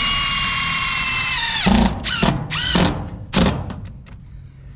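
A cordless DeWalt 20V MAX XR impact driver runs steadily with a high whine, driving a sheet metal screw with a neoprene gasket into steel roof flashing. About a second and a half in the whine winds down and stops. A few short trigger bursts follow as the screw is snugged down onto its gasket.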